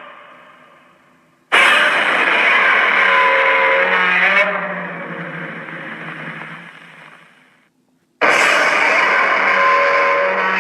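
Godzilla-style monster roar sound effect, mixed from several film Godzilla roars. A first roar bursts in about a second and a half in and trails away slowly over a few seconds; a second roar starts suddenly near the end.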